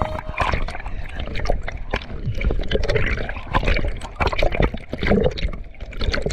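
River water splashing and trickling, with irregular knocks and a low rumble on the microphone.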